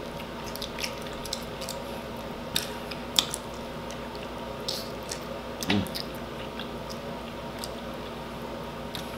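Close-miked wet eating sounds: scattered smacks and squelchy clicks as sauce-covered rotisserie chicken is chewed and saucy fingers are licked and sucked. A short low vocal 'mm'-like sound comes a little past halfway. Under it all is a steady background hum.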